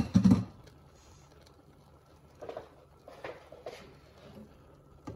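Kitchen handling sounds: a sharp knock and a short clatter at the start, then a few fainter knocks and rustles about two and a half to four seconds in.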